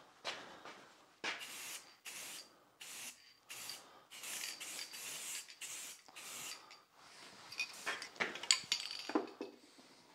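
Aerosol can of black spray paint hissing in a dozen or so short bursts, each about half a second long. A few sharp clicks come near the end.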